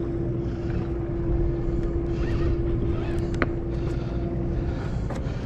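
The sportfishing boat's machinery runs as a steady low drone. A constant hum rides over it and drops out about four and a half seconds in, and a few faint clicks are heard.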